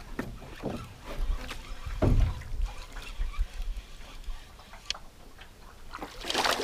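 Water splashing as a hooked small pacu thrashes at the surface and a landing net is dipped in to scoop it near the end, with a low thump about two seconds in.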